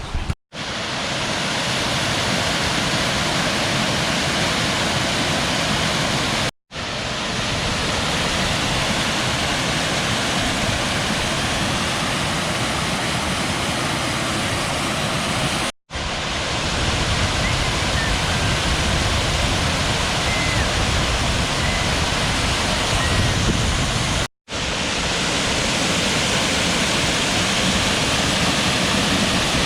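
Waterfall, a steady rush of falling water, broken four times by a split-second silence where the footage is cut.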